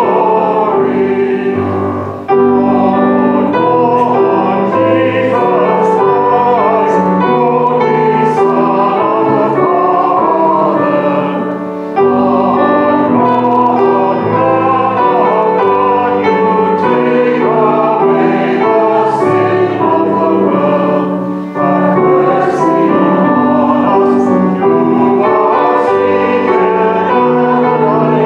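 Choral singing with keyboard accompaniment: a slow sacred song sung in sustained phrases, with a short break between phrases about every ten seconds.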